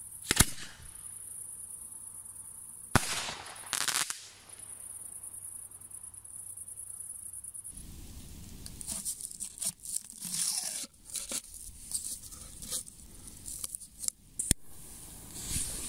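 A firework burning on the ground gives a sharp bang about half a second in and more crackling pops around three to four seconds in, over a steady high hiss. After a cut, a paper-wrapped homemade aerial shell is handled and lowered into a plastic mortar tube, with rustling, scraping and knocks against the tube.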